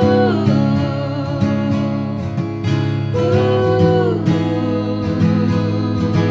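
Live band music in an instrumental gap between sung lines: strummed acoustic guitar under a lead melody of long held notes that slide up into and down out of pitch, twice.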